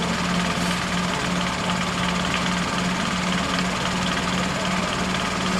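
Off-road 4x4's engine running steadily with a constant low hum while the vehicle stands on a steep slope.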